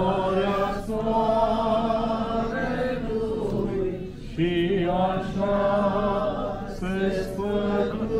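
A group of voices chanting a hymn in unison, the notes long and held, with brief pauses between phrases.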